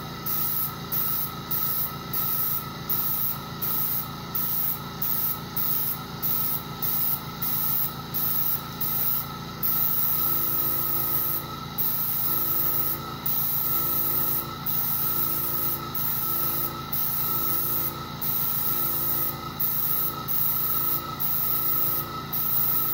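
A Harbor Freight airbrush hisses in short bursts as its trigger is pressed and released, about two a second at first, then in longer sprays from about halfway through. Under it, a small airbrush compressor runs with a steady hum and whine.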